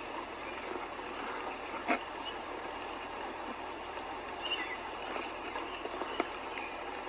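Steady rain falling during a thunderstorm, an even hiss, with a few short bird chirps and a couple of sharp taps about two and six seconds in.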